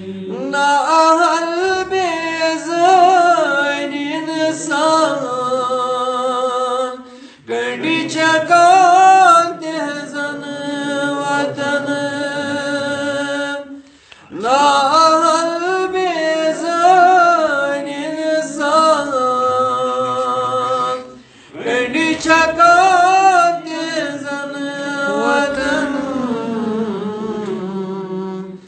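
A man's unaccompanied solo voice chanting a devotional naat in long, ornamented, wavering phrases. There are four phrases, with short breaths between them about every seven seconds.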